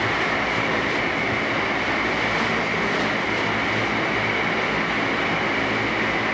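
Concrete line pump and ready-mix truck running: a steady, loud mechanical drone with a high whine running through it.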